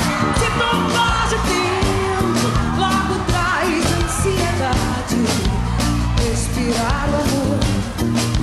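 Live band playing an upbeat axé-pop song, with a steady drum beat under a singing voice.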